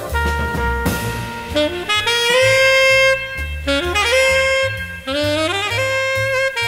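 Jazz background music: a horn plays a melody of held and sliding notes over a bass line.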